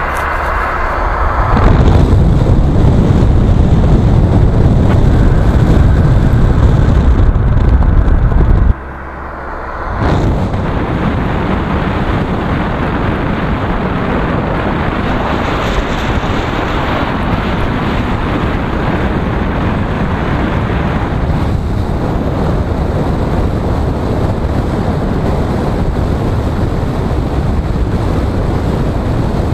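Car driving on a wet road, heard from inside the cabin: steady tyre and road noise. A heavy low rumble over the first several seconds drops away suddenly about nine seconds in, and the steady road noise returns a second later.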